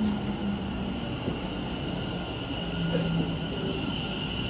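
West Midlands Railway passenger train at the platform, running with a steady low hum and a thin high whine.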